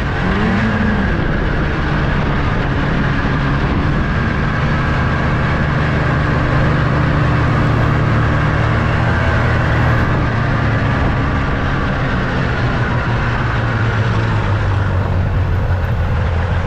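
Small vehicle engine running steadily while under way, with a level hum that drops a little in pitch near the end.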